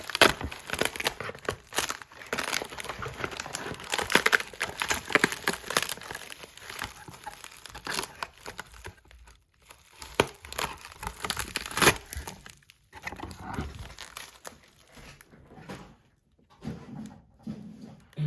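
Packaging being unwrapped by hand: irregular crinkling and tearing of wrapping material, with rustles and small clicks, pausing briefly a few times.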